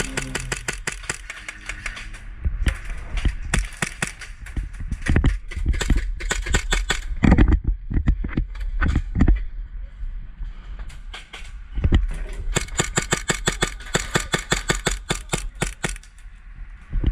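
Airsoft guns firing on full auto in rapid bursts of sharp clicking shots, several bursts separated by short pauses, with a few heavier low thumps between them.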